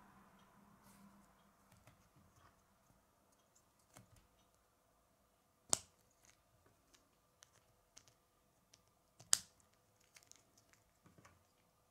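Small Lego plastic pieces being handled and pressed together: faint clicks and ticks, with two louder sharp snaps, one about halfway through and one later on as the wheels go on.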